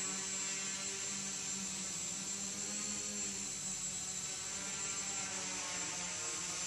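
Hexacopter hovering, its six electric motors and propellers giving a steady buzzing hum whose pitch shifts slightly as it adjusts.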